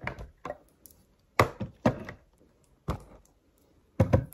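Plastic storage boxes and organiser trays being taken out of a drawer and set down on a table: a series of separate knocks and clacks, with a close run of them near the end.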